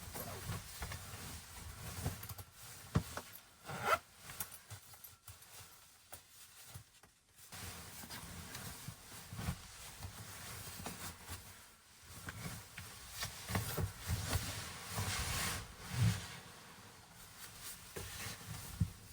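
Intermittent rustling of fabric and gear, with small scrapes and light knocks as things are handled.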